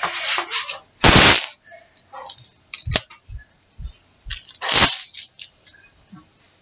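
Pin art toy being tilted and shaken, its metal pins sliding in a quick, loud rattling swish twice, about a second in and again near five seconds, with a sharp click and smaller knocks from the frame being handled in between.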